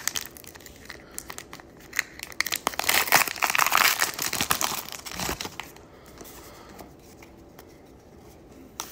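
Foil wrapper of a Pokémon booster pack crinkling in the hands, then tearing open, loudest from about three to five seconds in, followed by fainter rustling as the cards come out.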